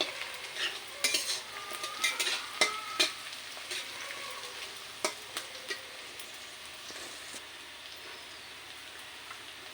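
Chopped onions and whole spices sizzling in hot mustard oil in a karai, with a steady hiss. In the first few seconds they are stirred, the utensil scraping and clinking against the pan, with a few more strokes around five seconds in.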